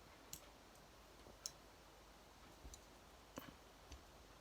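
A few faint, sharp clicks spread over several seconds: an old folding fishing multi-tool being worked open by hand, its tools and hinges clicking.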